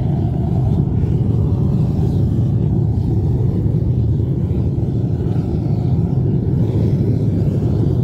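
Propane burner firing into a kiln converted to a gas furnace, its flame making a loud, steady low rumble.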